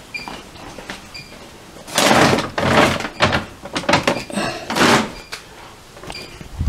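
A door being moved: several loud knocks and rubbing sounds over about three seconds. A faint, high chirp repeats about twice a second before and after them.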